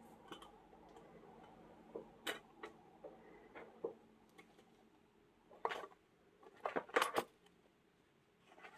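Scattered light knocks, taps and rustles of hands handling a lino-printing ink roller and paper on a desk, the loudest cluster about six to seven seconds in.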